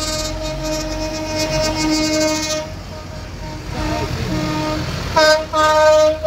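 Horns sounding from tractors driving past, over their running engines: one long held note for the first two and a half seconds, then two short, loud blasts near the end.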